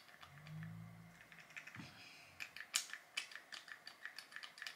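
Faint, quick plastic clicks of a Kylie Skin skincare pump bottle being pressed over and over, thickening into a rapid run about halfway through, with nothing coming out: the pump is broken.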